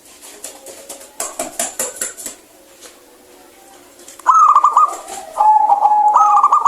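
Zebra dove (perkutut) singing: a loud run of quick, repeated cooing notes, a held lower note, then more quick notes, starting about two-thirds of the way in. A rapid burst of clicking or rattling comes earlier, about a second in.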